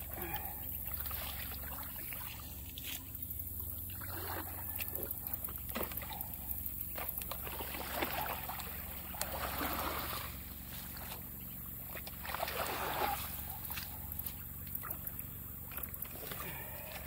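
Water sloshing and splashing as a long-handled garden rake with curved metal tines drags mud, sticks and weeds out of a beaver dam in shallow water, with small clicks of sticks and tines. The splashes come in several irregular pulls, the biggest around eight to ten seconds in and again near thirteen seconds, over a steady low rumble.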